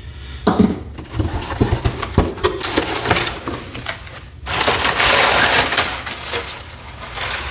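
Cardboard box flaps being pulled open and crumpled brown kraft packing paper being lifted out, a crackling, crinkling rustle with scattered clicks at first and loudest just past halfway as the paper comes out.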